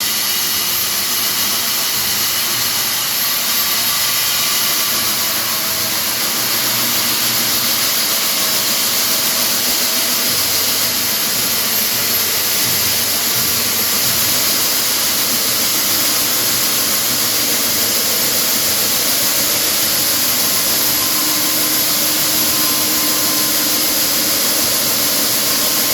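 Power tool cutting concrete, running steadily under load with a high whine over a grinding hiss.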